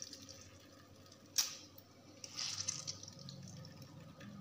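Water dripping and trickling out of grated radish as it is squeezed by hand over a bowl, with one sharp click about a second and a half in.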